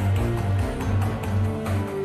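Background music with a steady, pulsing bass beat and percussion hits.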